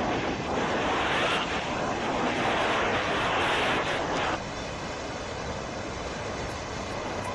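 Steady rushing noise of floodwater and rain, which drops abruptly to a quieter level about four seconds in.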